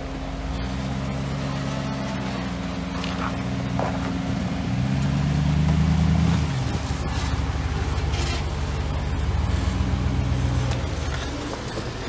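Engine of an early Ford Bronco rock crawler working up a rock ledge at low speed. About halfway through it revs up and holds for a couple of seconds, then drops back sharply and keeps varying with the throttle. A few short knocks and scrapes come from the tyres and chassis on the rock.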